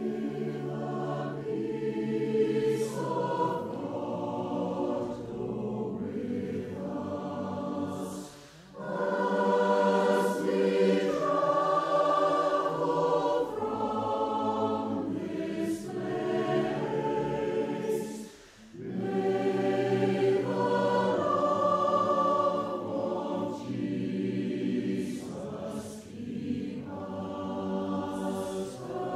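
A choir singing in long sustained phrases, with brief breaks between phrases about eight and eighteen seconds in.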